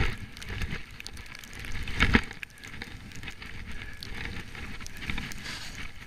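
Skis running through powder snow: a steady crackling hiss, with two louder swooshes, one at the start and one about two seconds in.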